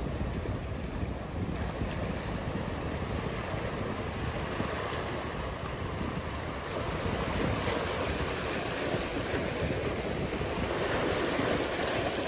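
Ocean surf: waves breaking and washing in a steady rushing noise that swells louder in the second half.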